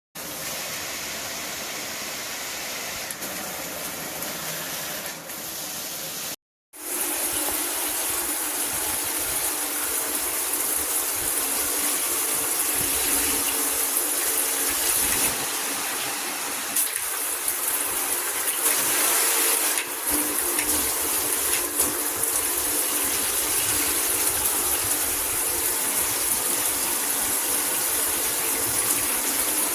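Water spraying steadily from a handheld shower head, a constant hiss, with a short break about six and a half seconds in. A few brief clicks sound over the spray later on.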